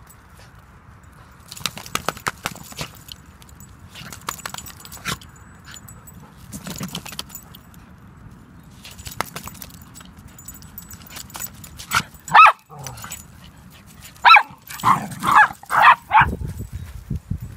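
A dog barking: two barks, then after a short pause a quick run of about five barks, in the last third. Before that there are scattered scuffs and knocks.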